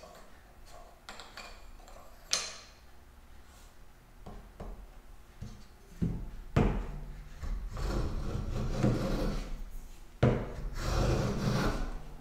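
A sharp knock and a few light knocks, then a metal hand plane taking strokes along the edge of a thin board, starting about halfway through in two long stretches. The cut sounds irregular at first because the edge is not yet smooth.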